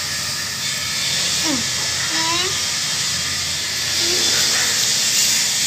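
Steady, even hiss throughout, with a few short voice-like sounds gliding in pitch: one falling about a second and a half in, one rising just after two seconds, and a brief one near four seconds.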